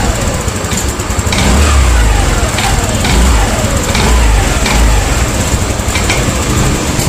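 TVS Jupiter 110 BS6 scooter's single-cylinder engine running on the move, surging and dropping away in uneven pulses about once a second as it misfires and cuts out. The fault shows when the engine is hot and was traced to a bad spark plug.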